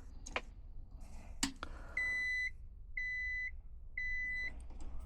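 Electronic beeper, most likely the technician's multimeter, giving three steady high beeps, each about half a second long and one second apart, while reading about 120 volts. A couple of sharp clicks come before them, as the test probes are handled.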